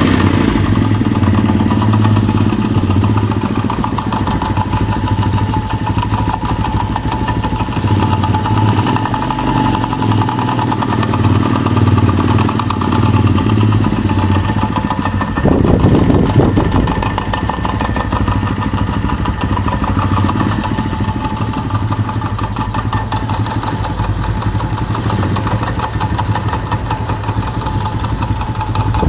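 Traxx Fly 135 motorcycle's single-cylinder engine idling with a rapid knocking from inside, blipped once about halfway through. The knock comes from a worn crankshaft bearing.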